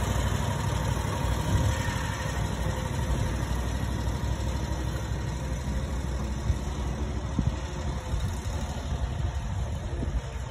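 Gravely Pro-Turn 252 zero-turn mower's engine running steadily while it cuts grass, going a little fainter near the end as the mower moves off.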